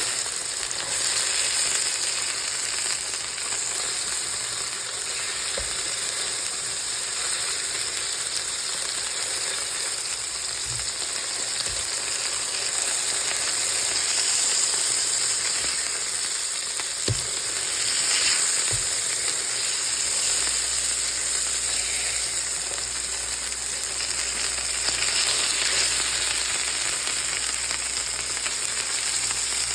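Beef burger patties frying in a hot pan, sizzling steadily. A few short knocks come partway through.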